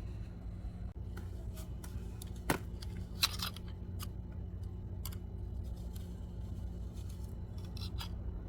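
Sand crunching and crackling as it is worked, in scattered crisp little clicks, with two louder crunches about two and a half and three and a half seconds in, over a steady low hum.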